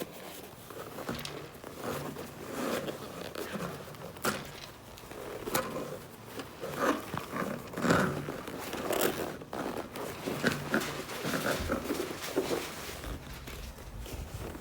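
Rustling and scratching of a cloth doll's body being handled and its stuffing pulled about, with scattered small clicks and scrapes.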